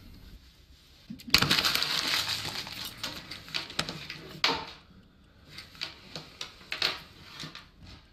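Handling noise of small objects on a table. About a second in there is a sudden burst of rustling that lasts about two seconds, followed by scattered sharp clicks and clinks.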